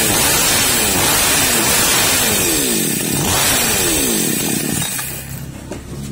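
Zomax chainsaw's two-stroke engine running at high revs during carburetor adjustment, its pitch sweeping downward over and over, then dropping to a steady idle about five seconds in.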